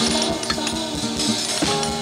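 A small band's recorded song playing: drums, bass guitar and guitar, with held notes over regular drum strikes.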